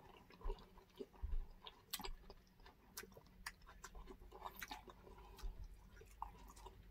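Faint, close-up chewing with small wet mouth clicks, scattered and irregular, of people eating grilled pork and chicken with rice.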